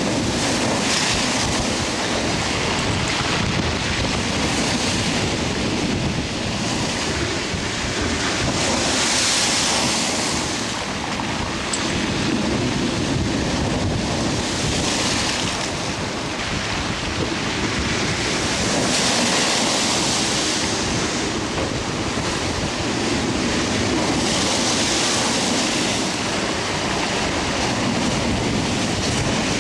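Hurricane-driven surf pounding a sea wall: a continuous rush of breaking waves, with a hissing crash that swells and falls back about every five seconds. Strong wind buffets the microphone.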